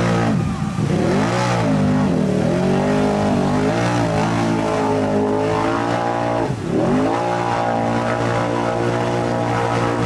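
Mud-racing ATV engine held at high revs while its oversized paddle tires spin through deep mud. The revs drop and climb back sharply twice, once near the start and again about six and a half seconds in.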